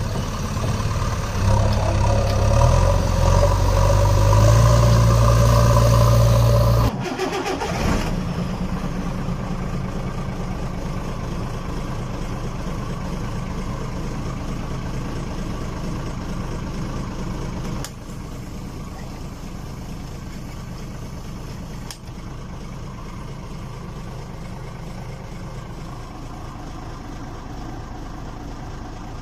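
Truck engine running, loud with a heavy low hum, then cutting off abruptly about seven seconds in to a quieter, steady rumble.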